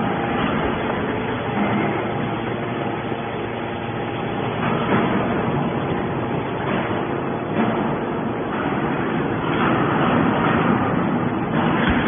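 Hydraulic scrap metal baler running: its motor and pump hum steadily under a dense mechanical noise that swells several times as the ram pushes a compressed bale of scrap out of the chamber.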